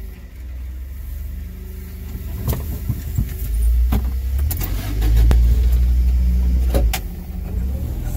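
Forklift engine running with a steady low hum that grows louder about halfway through, with several sharp clicks and knocks.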